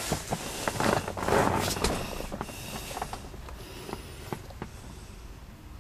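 Rustling and handling noise with scattered light clicks and knocks as a handheld camera is moved around a car interior, loudest in the first two seconds and then quieter.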